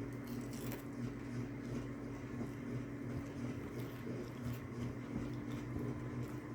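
Room tone: a steady low hum with faint, scattered clicks and rustles.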